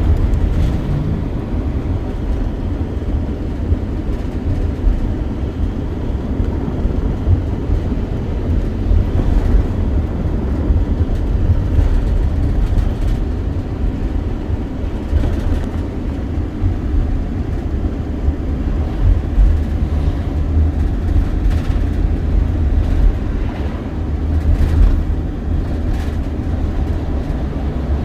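A vehicle's steady, loud low rumble with continuous running noise and a few faint clicks.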